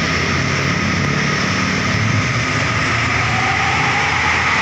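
Steady road traffic noise with the low drone of a heavy bus's diesel engine passing close by, and a faint whine rising near the end.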